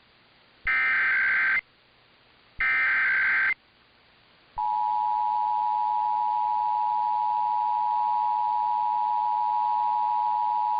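Emergency Alert System broadcast test: the last two of the three SAME header data bursts, each about a second of harsh warbling buzz, then about four and a half seconds in the two-tone EAS attention signal starts and holds steady. The bursts are the digital header that triggers alert receivers; the dual tone is the alert's attention signal that precedes the spoken test message.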